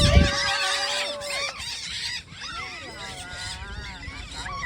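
Flock of free-flying parrots (mini macaws and conures) squawking, with many short harsh calls overlapping. A long, steady held note sounds over the calls for the first second and a half.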